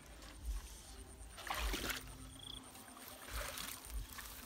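Legs wading through a shallow stream, the water splashing and sloshing. The loudest splash comes about a second and a half in, and a smaller one follows a little after three seconds.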